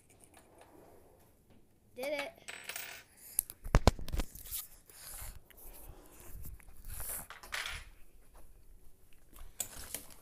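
Clattering knocks with rubbing and handling noise as a handheld phone camera is moved about; a few sharp knocks about four seconds in are the loudest.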